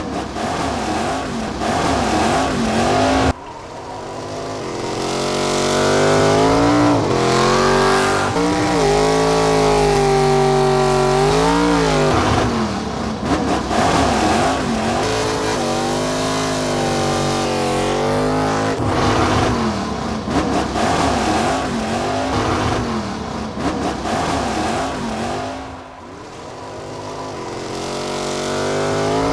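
Off-road VW Beetle's engine revving hard, its pitch climbing and dropping again and again. The sound breaks off abruptly and restarts twice.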